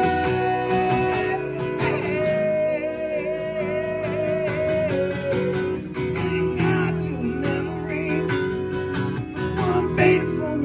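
A band playing live: strummed acoustic guitar with a second guitar, and a man singing long held notes that waver in pitch.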